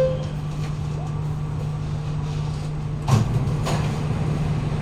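Kawasaki-CRRC Qingdao Sifang CT251 metro car running, heard from inside: a steady low hum of the running gear with rail noise, and two sharp knocks about three seconds in, half a second apart. The car's wheels have severe flat spots.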